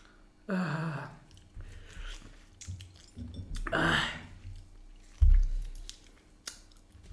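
A man biting and chewing sour lime wedges. About half a second in he gives a groan that falls in pitch, a sharp breathy burst follows near four seconds, and a loud low thump comes just after five seconds.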